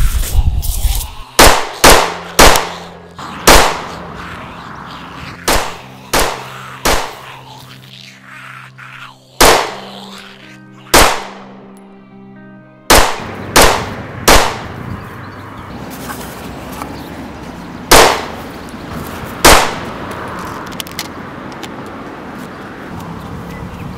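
Gunshots fired at irregular intervals, about a dozen single sharp bangs each with a short ringing tail, over background music.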